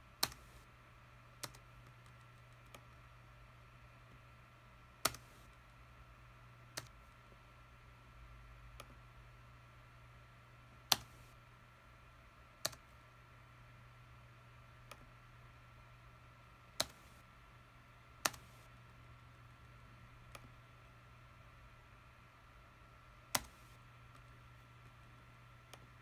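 Separate sharp clicks of a computer mouse and keyboard, about fourteen of them spaced irregularly one to six seconds apart, over a faint steady hum.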